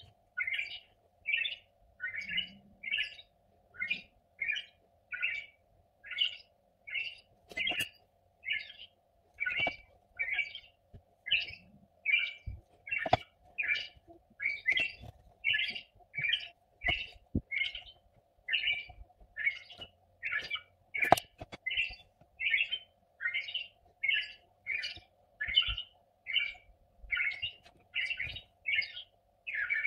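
A bird chirping over and over at an even pace, about three short chirps every two seconds.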